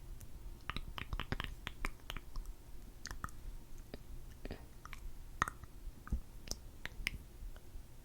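Close-miked mouth sounds: sticky, wet lip smacks and clicks from lips coated in freshly applied lip gloss. A quick run of clicks comes about a second in, then single ones spaced out through the rest.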